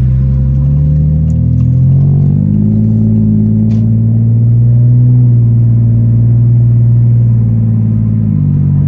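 BMW E46 with catless headers and a custom 4-inch single-exit Greddy exhaust with a Vibrant Ultra Quiet resonator, driven under light throttle: the exhaust note rises in pitch about two to three seconds in, holds steady, then drops suddenly near the end as the revs fall.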